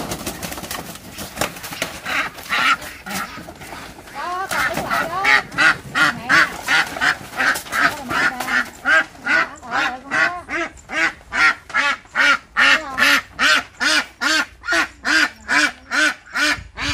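Ducks quacking loudly: scattered calls at first, then about four seconds in a fast, even run of quacks at about three a second.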